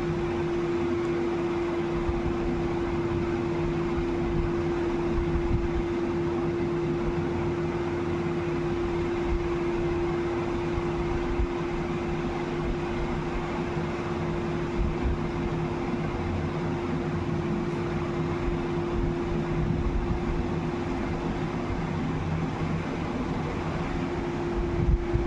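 Steady machine hum with one constant tone over an even rushing noise, with a few faint low thumps.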